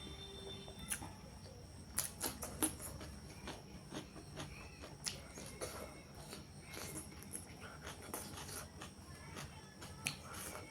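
Close-miked eating sounds: irregular wet clicks and smacks of chewing, with a cluster of sharper clicks about two seconds in and another near the end.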